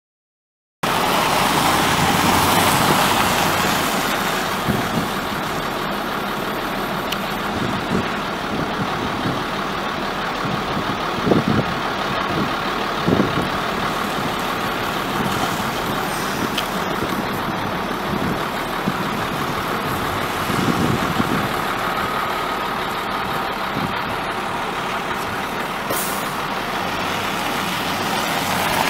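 Chevrolet Silverado pickup's 5.3-litre V8 idling steadily, with a few brief louder moments partway through.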